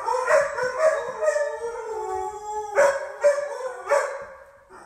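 Husky howling in two long, wavering howls, the second starting a little under three seconds in and fading out near the end.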